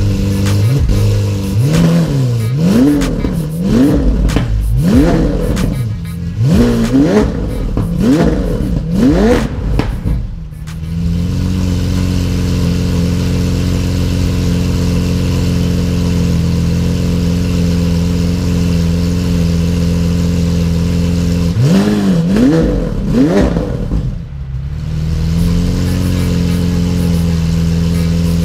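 Lamborghini Aventador's 6.5-litre V12 revved in quick throttle blips about once a second, then settling to a steady idle; two more blips about two-thirds of the way through before it drops back to idle. Heard from behind the exhaust in a concrete parking garage.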